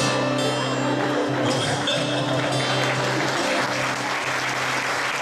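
Audience applause building over held chords on an electric guitar, the clapping growing stronger through the second half.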